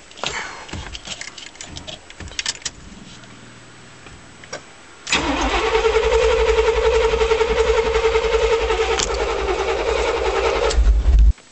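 Starter cranking the 1989 Chevrolet pickup's 350 small-block V8: a steady whine with a rhythmic pulse that comes in suddenly about five seconds in and runs for about six seconds. Before it, light clicks and rustling of handling in the cab.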